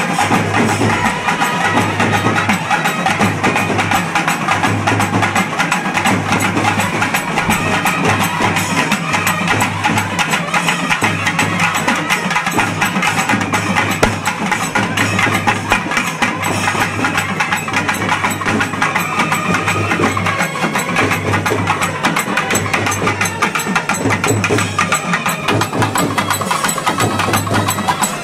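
Kerala chenda drum ensemble playing a fast, dense, unbroken rhythm of stick strikes.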